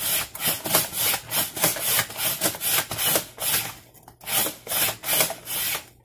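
Hand-operated Slice-O-Matic slicer cutting raw potato into thin chips. It makes rapid rasping strokes, about three a second, with a short pause about four seconds in.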